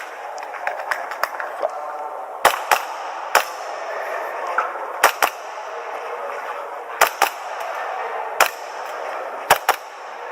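Airsoft pistol shots fired in quick pairs (double taps) during a timed action-air course of fire, about ten shots in all, with a few seconds between the pairs.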